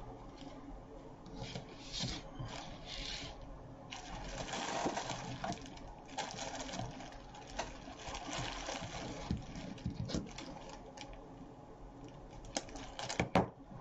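Crinkling of a clear plastic sleeve and rustling of artificial flower stems as a floral bunch is handled and stems are pulled out, with a few sharp clicks near the end.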